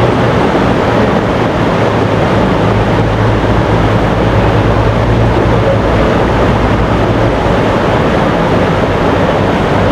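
Fast-flowing river running over rocks and rapids: a loud, steady rush of water.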